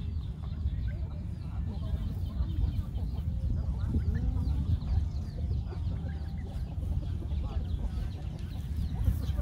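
Farmyard ambience: chickens clucking and small birds chirping over a steady low rumble. The bull makes no call.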